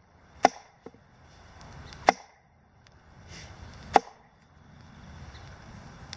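Cedar log being struck to split it into kindling: three sharp wooden knocks about two seconds apart, with a faint tap after the first.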